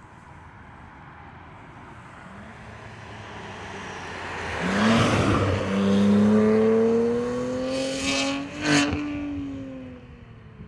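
BMW G80 M3's twin-turbo S58 inline-six, breathing through catless downpipes and a titanium equal-length X-pipe catback exhaust, accelerating past with its pitch climbing. The sound builds up, is loudest for a few seconds, gives a short sharp crack near the end, then drops in pitch and fades.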